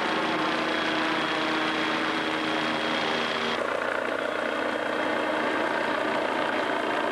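Light helicopter in flight, a steady engine and rotor drone with a thin high whine over it; the sound changes abruptly about three and a half seconds in.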